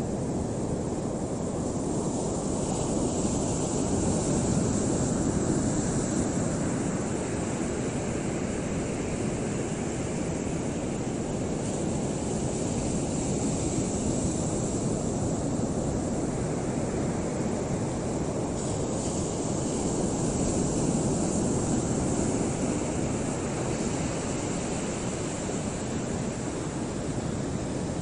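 Steady rushing of wind and choppy open water, slowly swelling and easing, with no bird call.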